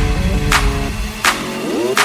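Electronic background music with a steady beat and a stepping synth melody; the heavy bass drops out about halfway through and a rising sweep comes in near the end.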